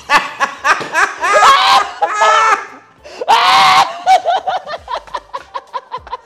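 Two men laughing hard: choppy bursts of laughter, with a loud, high-pitched shriek of laughter about three seconds in, then quicker, smaller pulses of laughter to the end.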